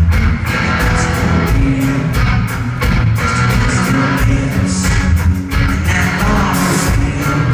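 Live rock band playing loud, with electric guitars, bass and a steady drum beat, recorded from the crowd.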